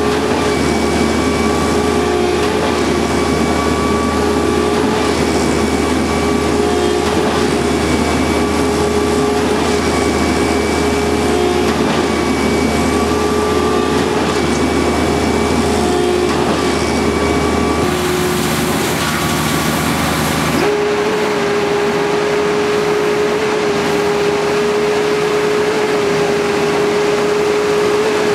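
Truck-mounted concrete boom pump pumping: a loud, steady engine and hydraulic drone that dips briefly about every two seconds, the rhythm of the pumping pistons changing stroke. About three quarters of the way through the low part of the drone drops away, leaving a steadier hum.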